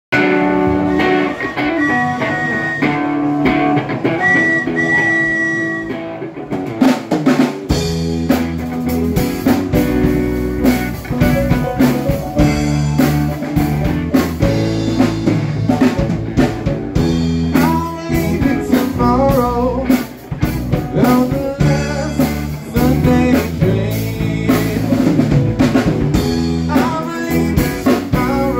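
Live blues-rock band playing an original song: drum kit, electric guitar and bass. It opens lighter, without the low end, and the bass and full band come in about seven or eight seconds in.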